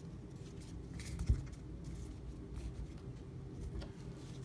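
Faint handling of a stack of baseball trading cards, the cards sliding and clicking lightly as they are flipped through by hand, with one sharp light knock about a second in, over a low steady hum.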